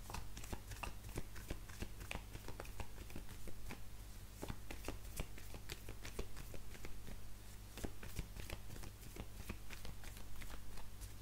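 A deck of oracle cards being shuffled by hand: a continuous, irregular run of quick soft card flicks, several a second, over a low steady hum.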